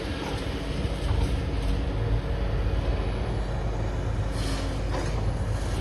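Heavy diesel demolition machinery, such as an excavator, running steadily with a low engine drone, and a short burst of noise about four and a half seconds in.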